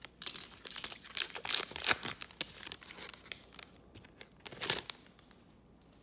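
Foil-lined wrapper of a trading card pack being torn open and crinkled by gloved hands: dense crackling over the first three seconds or so, then a short crinkle a little before five seconds as the cards are pulled out.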